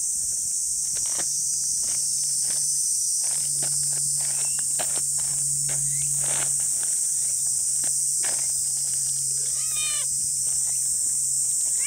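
A black cat meows once, about ten seconds in, over a steady high insect drone. Short taps and scuffs of footsteps on dry leaf-strewn ground come and go throughout.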